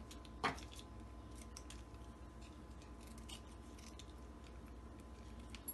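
Scissors snipping open instant-noodle seasoning sachets: one sharp click about half a second in, then faint scattered clicks.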